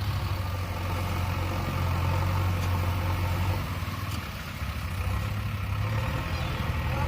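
JCB 3DX backhoe loader's diesel engine running steadily at low revs.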